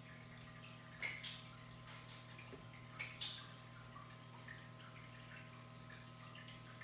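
A few light clicks and taps in pairs during the first three seconds or so, over a faint steady hum: a cat's claws on laminate flooring as it walks.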